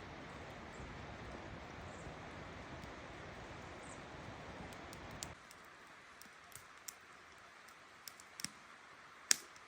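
Steady rush of flowing river water, which cuts off abruptly about five seconds in. After that comes a quieter stretch with a handful of scattered sharp clicks and pops, the loudest near the end.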